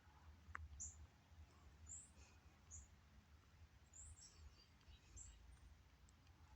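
Near silence, with short, faint high-pitched chirps every second or so over a low hum.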